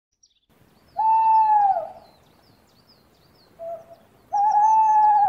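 Great horned owl calling: two long, steady hoots, one about a second in and one near the end, with a short faint note between them. Faint high chirping of small birds runs behind.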